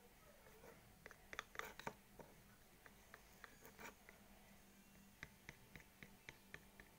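Faint clicks and scrapes of a plastic spoon stirring a glue-and-lotion slime mixture against the sides of a plastic tub. There is a flurry about a second in and a quick run of light ticks near the end.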